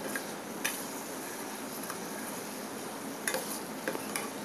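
Ridge gourd pieces sizzling in a steel pan as they are stirred with a spoon, with a few scattered clicks of the spoon against the pan. The stirring fries the just-added sambar and turmeric powder until its raw smell cooks off.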